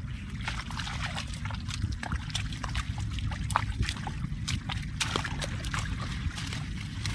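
Bare feet and hands splashing and squelching in shallow muddy water, many short irregular wet splats, over a steady low rumble.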